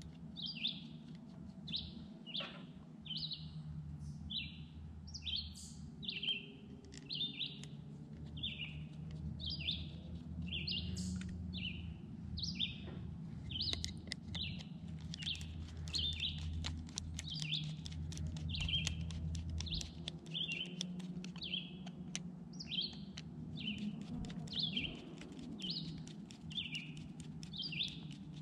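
A bird chirping over and over in a steady rhythm, a short high chirp a little more than once a second, over a low steady hum.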